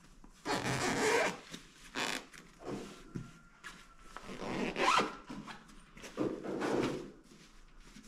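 A zipper on a fabric travel bag being pulled in several separate rasping strokes while clothes are packed.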